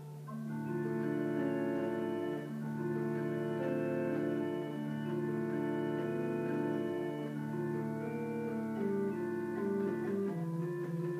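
Pipe organ playing slow, sustained chords over a held bass, the chords changing every second or two. The lowest notes drop out near the end.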